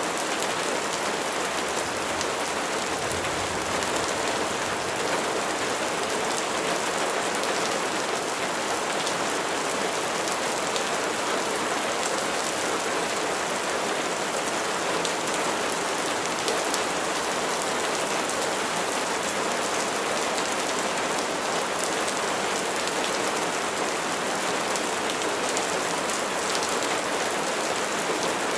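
Steady rain falling on a surface: an even hiss with scattered faint drop ticks.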